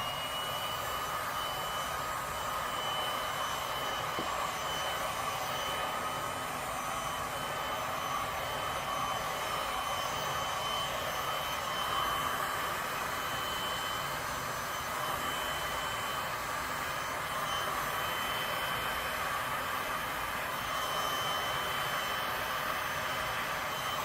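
Electric heat gun blowing hot air steadily over wet resin, a steady rushing hum with a high whine.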